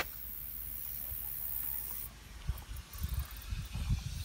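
A steady, very high-pitched outdoor hiss that fades about two seconds in, followed by a run of low thumps and rumbles.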